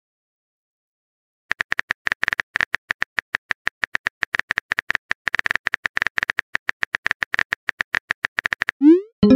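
Simulated phone keyboard typing sound effect: a fast, irregular run of key clicks starting about a second and a half in and lasting about seven seconds. Near the end a short rising swoop, a message-sent pop.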